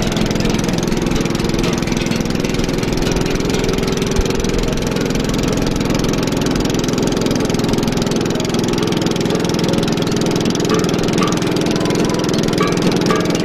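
Boat engine running steadily at constant speed, a continuous even drone.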